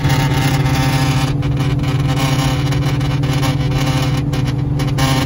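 Ford Mustang cruising at highway speed, heard from inside the cabin: a steady engine drone over tyre and road noise.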